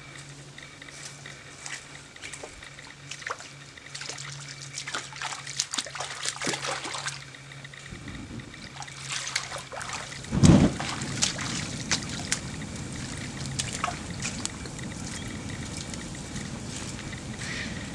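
Sharp ticks and small splashes of water, then a fire taking hold in an upright piano. It flares with a loud low whoosh about ten seconds in and then burns on with a steady low rumble and scattered crackles.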